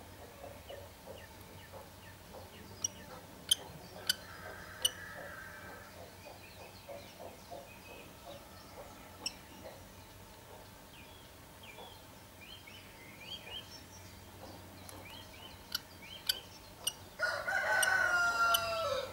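Rooster crowing once near the end, a call of about two seconds that falls in pitch at its close. Before it come scattered sharp clicks and taps and faint short bird chirps.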